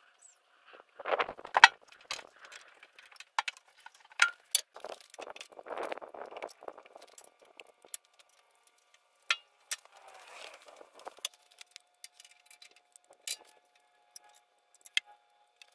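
Scattered metallic clicks and clinks with short bursts of rustling, from a hand grease gun being handled and worked on grease fittings. The loudest clicks come about a second and a half in and near four and a half seconds.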